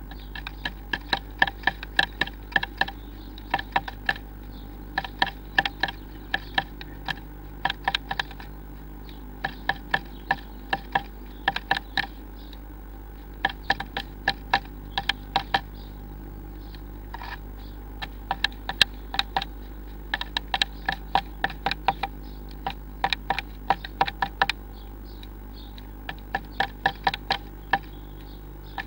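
Blue tit pecking and tapping at the wood inside a nest box: irregular runs of sharp taps, several a second, broken by short pauses, over a steady low electrical hum.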